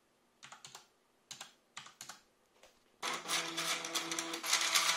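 Several computer keyboard keystrokes, then about three seconds in NEMA 17 stepper motors start turning the 3D-printed PLA vanes of a mechanical 7-segment display, a loud steady whine with fast ticking.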